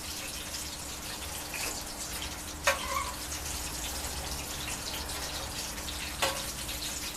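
Vegetable oil sizzling steadily in a frying pan as crumbed chicken schnitzels are shallow-fried, with two sharp clicks of a utensil, one a little under three seconds in and one near the end.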